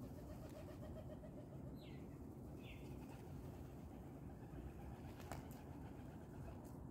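A flock of pigeons flapping their wings as they take off and land, faint over a low steady background rumble. Two short falling high chirps come about two and three seconds in, and a sharp click sounds a little after five seconds.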